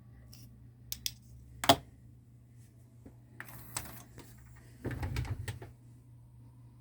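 Akai GX-9 cassette deck's transport mechanism clicking and clunking as it is operated: a few sharp clicks, one loud clack, then a brief mechanical rattle, over a steady low hum. The deck is on its first start before repair, with belts due for replacement.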